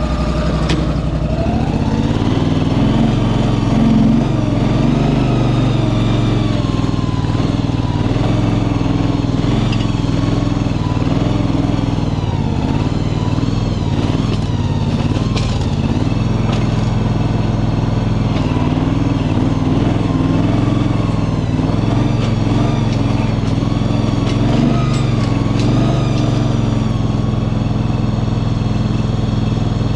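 Small engine of a Cardinal shed mover running steadily under load as it carries a small wooden shed. It picks up about a second in, then holds with a gently wavering pitch.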